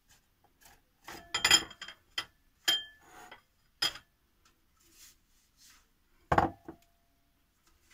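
Metal box grater knocking and clinking against a glass bowl: several separate knocks with short metallic ringing, the loudest about six seconds in with a lower ring.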